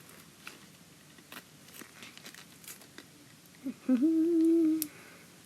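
Faint rubbery rustles and small clicks of a balloon being handled and tied off. About four seconds in comes a short hummed "mmm" of effort, held on one pitch for about a second, which is the loudest sound.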